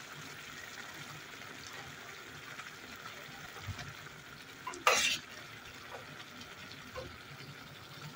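Pan of sauce simmering with a steady soft sizzle while a spoon stirs the white beans into it, with one loud short scrape or knock of the spoon against the pan about five seconds in and a few light ticks after.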